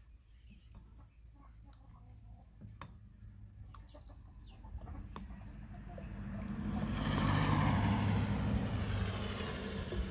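A motor vehicle passing by, swelling to its loudest about seven to nine seconds in and easing off, with chickens clucking faintly before it.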